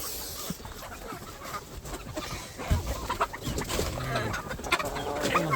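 A flock of chickens clucking, with more and busier calls from about three seconds in.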